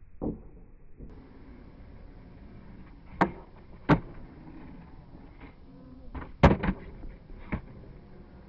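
Skateboard on concrete: wheels rolling, with a knock near the start, a pop and clack onto a concrete ledge about three to four seconds in, a scrape along its edge, then a loud slap of the board landing back on the ground about six and a half seconds in, followed by a lighter clack.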